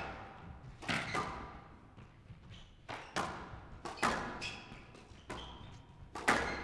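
Squash rally: the ball cracking off rackets and the court walls, with sharp impacts that ring in a hard-walled court, about one a second.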